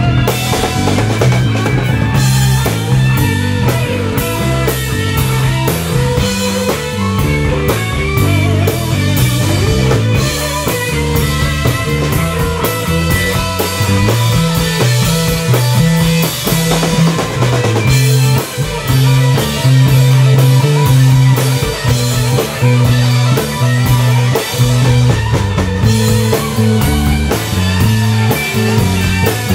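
Live psychedelic rock band playing, with electric guitars over a drum kit and a heavy bass line.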